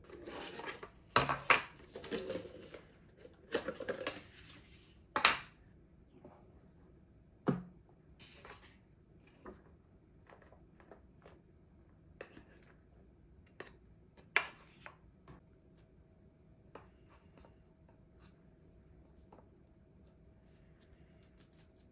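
Light knocks, clicks and rustling of food being packed into round paper bento bowls on a wooden table: bowls set down and rice and side dishes placed with chopsticks. It is busiest in the first few seconds, then gives a few sharper knocks and scattered small clicks.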